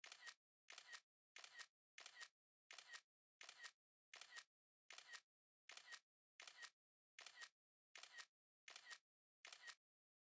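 iPhone camera shutter sound effect repeating at a steady pace, about one shutter every 0.7 seconds, each a quick double click.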